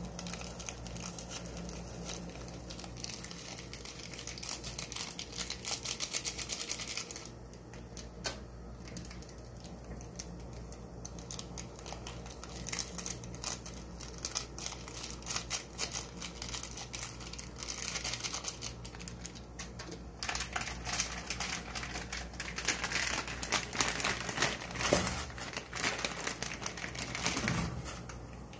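Foil instant-ramen seasoning sachets and wrapper crinkling and rustling as they are handled and squeezed out over a pot. The sound comes in several spells of small crackles and is loudest in the last several seconds.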